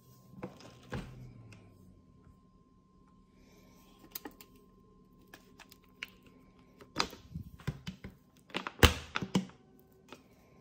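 Refrigerator door and the things in it being handled: scattered clicks and knocks, the loudest about nine seconds in, over a faint steady hum.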